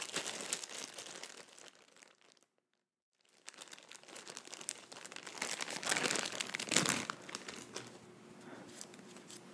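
Crinkling and rustling of material handled close to the microphone, loudest about six to seven seconds in. It breaks off into silence for about half a second near the three-second mark.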